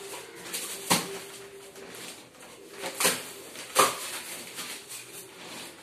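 Unpacking knocks and cardboard rustling as a Precise Elegant carrom board is slid out of its cardboard box on the floor: three sharp knocks, about a second in, at three seconds and just under four seconds.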